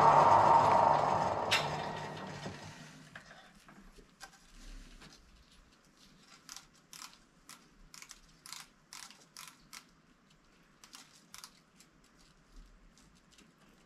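A workshop machine tool running, then winding down over the first two or three seconds as it is switched off, followed by a series of light clicks and ticks, about one or two a second.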